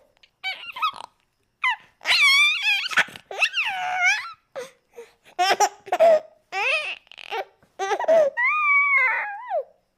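High-pitched childlike voice giggling in a string of short bursts with wavering, warbling pitch, some drawn out into squeals: a cartoon-style baby girl giggle sound effect.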